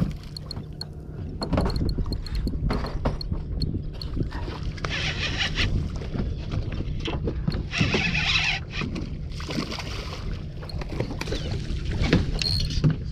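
Boat engine idling with a steady low hum, under scattered knocks and clicks. A quick run of faint, even ticks comes in the first few seconds, and two bursts of hissing noise come about five and eight seconds in.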